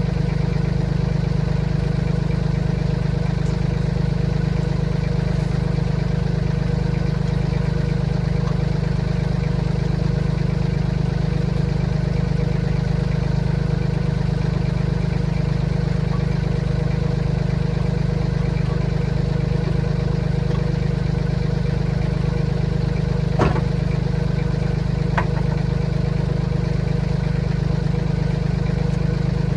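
Tractor engine idling steadily. Two short metallic clanks come near the end.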